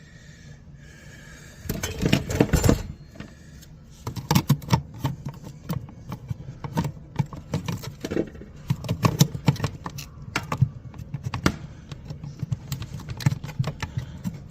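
Irregular clicks and light metallic clinks of small tools and parts being handled, with a louder stretch of scraping handling noise about two seconds in.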